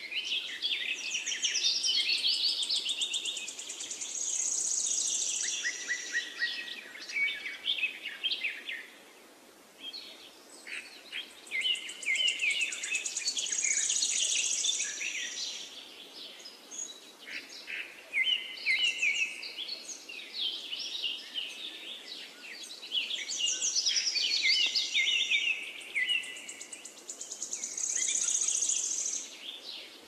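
Lutino cockatiel chattering and warbling: fast runs of chirps with a high whistled note held for a second or two, the phrase coming back several times, with a short lull about ten seconds in.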